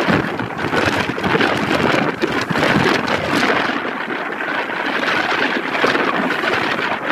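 Strong wind buffeting the microphone: a loud, uneven rushing noise that swells and dips with the gusts.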